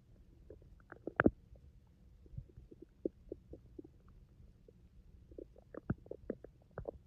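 Human stomach growling: a run of short gurgles and pops over a low rumble. There is a loud gurgle about a second in, and the gurgles come thicker near the end.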